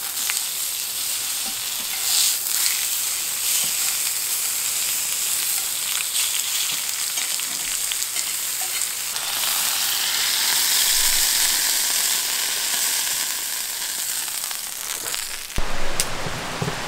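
Meat sizzling as it fries in a hot pan, a steady hiss with scattered small pops. Near the end it cuts suddenly to a different, fuller noise.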